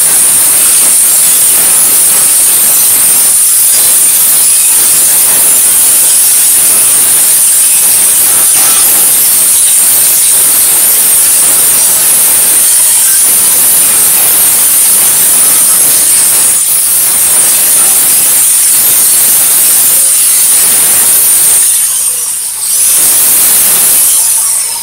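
Angle grinder running with an abrasive deburring pad against steel, cleaning burrs off the cut edges of a propane tank. It makes a loud, steady high whine and hiss, dips briefly near the end, then stops.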